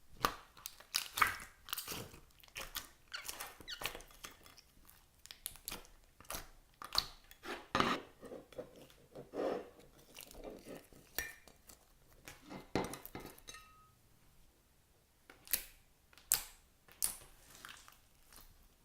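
Crunchy clear slime with floam beads being squished and kneaded by hand, giving irregular crackles and pops. They come thick and fast at first, then thin out to a few separate pops near the end.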